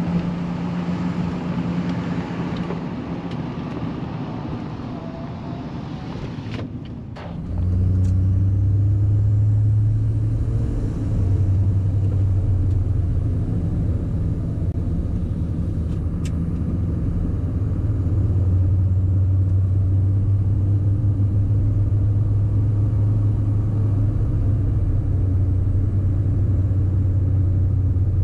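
Duramax 6.6L V8 turbodiesel pickup truck running with a steady drone. About seven seconds in there are two sharp clicks, after which the engine note turns lower and markedly louder and holds steady.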